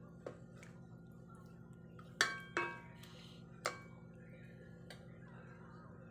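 Wooden spatula stirring a stew in a metal pot, knocking against the pot a handful of times with short ringing clinks, the loudest about two seconds in, over a faint steady hum.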